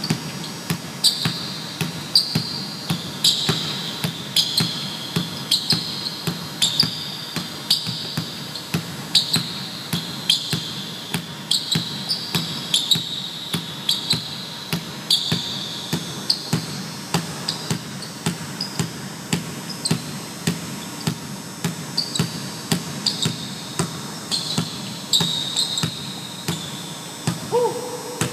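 A basketball being dribbled hard and fast on a hardwood gym floor, a few bounces a second, with short high sneaker squeaks on the floor coming between the bounces.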